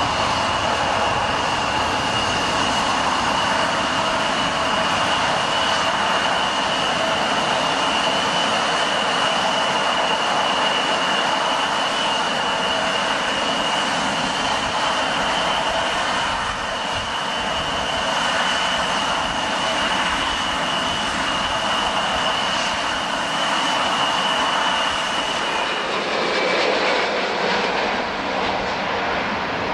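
Boeing 777-200 twin turbofan jet engines at takeoff thrust during the takeoff roll and liftoff: a dense jet rush with a steady high whine over it. About 26 seconds in the whine stops and the sound turns to a duller rush.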